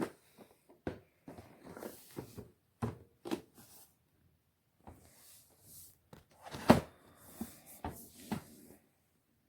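Hard plastic clicks and knocks from handling the parts of a Bissell Zing bagless canister vacuum with its motor off, a scattered run of separate taps with the sharpest knock about two-thirds of the way through.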